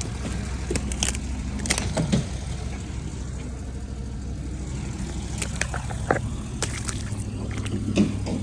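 Boat motor running steadily with a low hum, with several sharp knocks over it.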